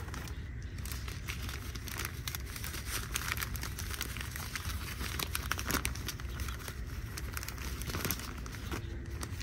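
Plastic Ziploc quart freezer bag crinkling and rustling in the hands as desiccant packets are pushed inside it, an irregular run of small crackles.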